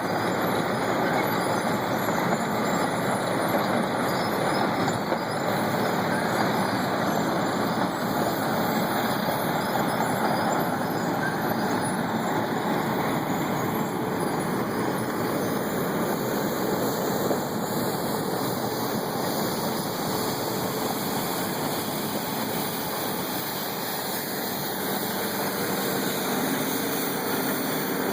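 Asphalt milling machine running and grinding off road pavement: a dense, steady heavy-machine noise of diesel engine and cutting drum, dipping slightly about three quarters of the way through.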